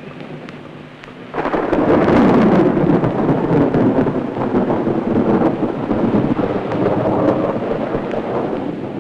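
Sea surf on a rocky shore: waves washing and breaking in a continuous rush, which swells up suddenly about a second and a half in, stays loud, then eases a little near the end.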